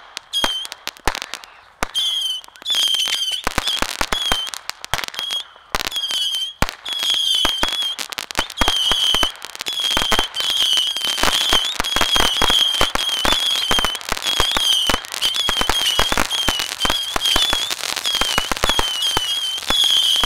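Saturn missile batteries firing: a rapid string of small missiles, each giving a short high whistle and a sharp crack, over the crackle of a ground fountain. The shots are sparse for the first few seconds, then come thick and fast.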